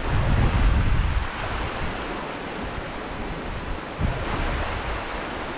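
Wind buffeting the microphone in gusts over the rush of shallow river water. About four seconds in, water splashes as a cast net is gathered in by hand.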